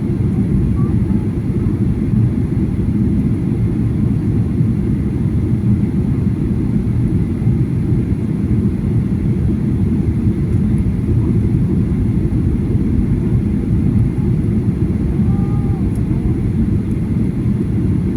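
Airliner cabin noise: the steady low rumble of the jet engines and airflow heard from inside the passenger cabin.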